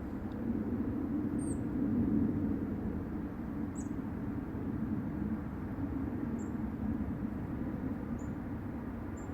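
Low, steady rumbling drone from the sky like low-flying jet engines, swelling slightly about two seconds in; the uploader saw no aircraft and could not explain it. A few short, high chirps sound over it every second or two.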